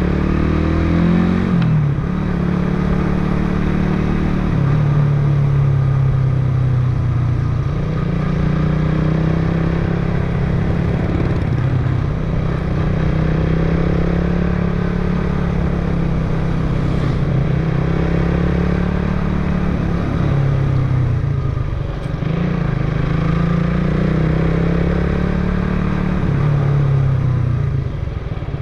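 Motorcycle engine running as the bike rides along, its note rising and falling several times with the throttle.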